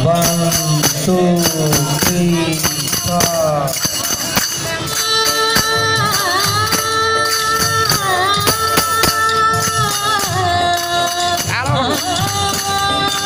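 Small hand cymbals clinking in a steady rhythm under a singing voice that glides at first and then holds long notes.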